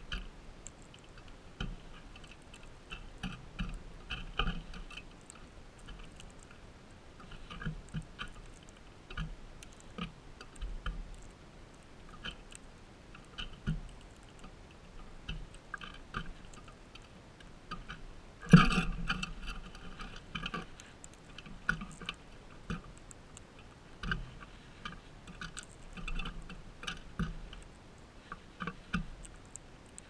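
Crimson rosellas cracking sunflower seeds in their beaks and picking through the husks on a feeder tray: irregular clicking and crunching. A single louder knock comes about two-thirds of the way through.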